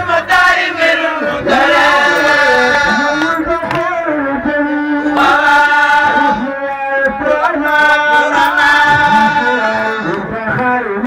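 A man chanting devotional verses into a microphone, drawing out long melodic notes with ornaments and brief breaks between phrases.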